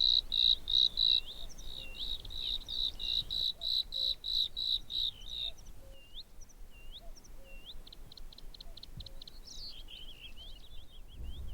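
Bluethroat singing: a long run of ringing notes repeated about three times a second, then scattered hooked whistles, a quick rattle of ticks and a twittering jumble near the end.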